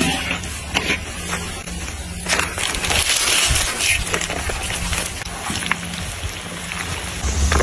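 Popcorn kernels and candy heating in a pot: scattered small clicks with a sizzling hiss that swells about two and a half to four seconds in, over a steady low hum.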